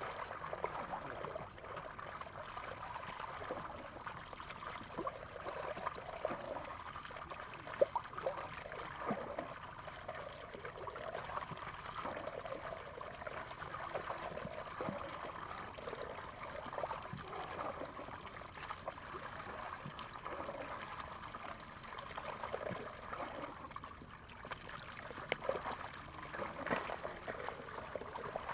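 Shallow water trickling and sloshing, with many small irregular splashes and one sharp knock about eight seconds in.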